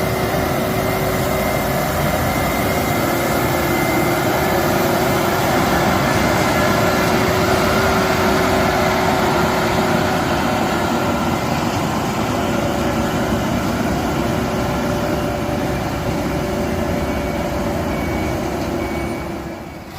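Heavy road-construction machinery running steadily, an engine's noise with a steady whine over it. The sound dips sharply right at the end.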